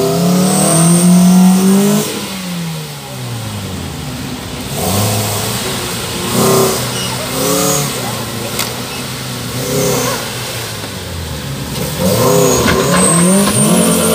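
Off-road 4x4's engine revved hard in repeated bursts, its pitch rising and falling, while the vehicle labours to climb out of a deep mud rut. The revs are loudest at the start and again near the end, with shorter blips in between.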